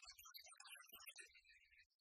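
Near silence, with only faint, garbled traces of sound.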